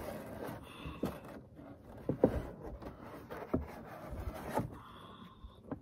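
Handling noise as a Starlink satellite dish is lifted out of its cardboard shipping box: a few scattered knocks and scrapes of the dish against the packaging, the loudest about two seconds in.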